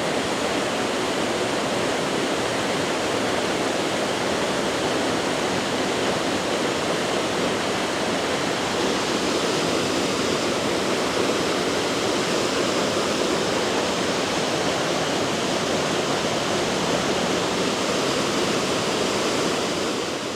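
Harmby Falls, a waterfall on Harmby Beck, pouring in a steady roar of falling water, close up. The sound fades out right at the end.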